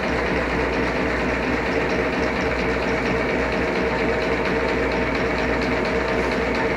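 WMW GFL 5000 thread milling machine running steadily, a constant mechanical hum with a faint, regular light ticking.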